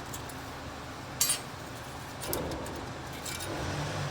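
Metal brake pad hardware clips clinking as they are removed from a front brake caliper bracket: one sharp clink about a second in, then fainter clicks.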